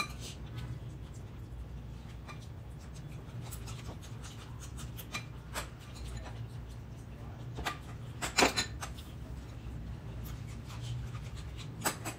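Table eating sounds: a metal spoon clinking and scraping against a ceramic bowl, with small clicks and rustles of hands and food, the loudest few clinks about eight seconds in, over a steady low hum.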